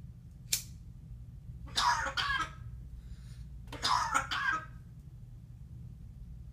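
A parrot mimicking a human cough: two coughing fits about two seconds apart, each a run of short quick hacks, after a single sharp click about half a second in.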